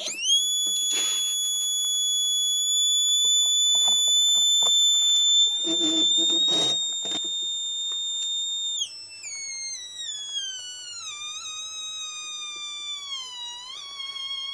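Mini theremin sounding a steady, high electronic tone, which then glides down in pitch in steps about nine seconds in, with small quick wobbles as something moves near its antenna. Short handling noises are heard around the first second and again around six seconds in.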